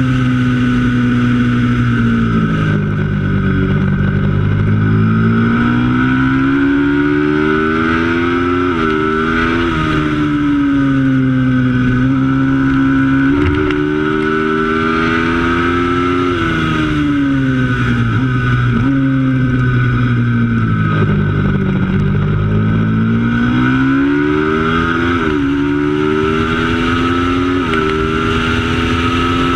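Racing motorcycle's twin-cylinder engine under hard use, its pitch climbing through the revs and falling away again several times, with a few quick dips and jumps in pitch between.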